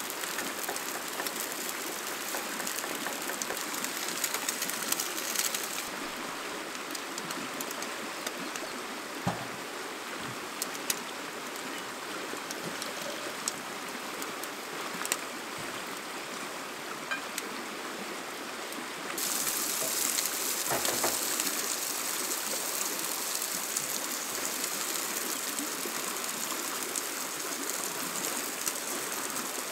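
Steady rushing water noise with scattered sharp ticks. It turns duller about six seconds in and brightens again a little before twenty seconds.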